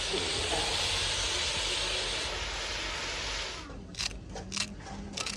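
Spiced masala sizzling in a pot over a wood fire, a steady high hiss. It cuts off a little before the end, and a knife then chops fresh coriander in several quick, crisp strokes.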